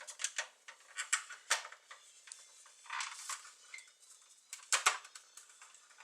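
Hard plastic parts of a 1983 G.I. Joe Skystriker toy jet clicking and tapping together as the canopy is fitted, with a short scraping rub about halfway through.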